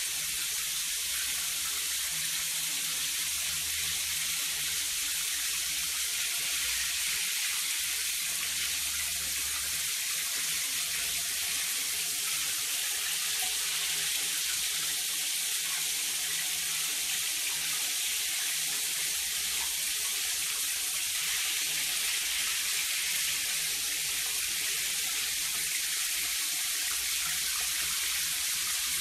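Shower running in a steady hiss, water falling onto a tiled shower floor.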